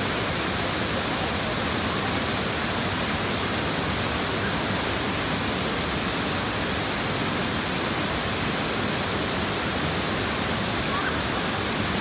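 Waterfall pouring over rock ledges into a pool close by: a steady, even rush of falling water that does not let up.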